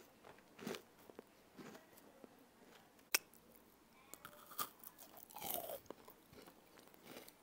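Faint chewing and crunching of cookies being bitten and eaten, in small scattered crunches, with a sharp click about three seconds in.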